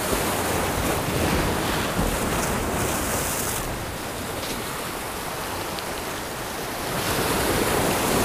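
Waves washing and splashing against jetty rocks, with wind buffeting the microphone. The surge swells in the first few seconds, eases in the middle and builds again near the end.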